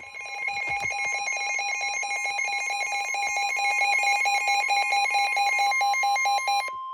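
Emergency Alert System attention signal: a harsh alarm of two high tones sounded together, the lower one pulsing fast and evenly. Near the end the pulsing stops and only the upper steady tone remains.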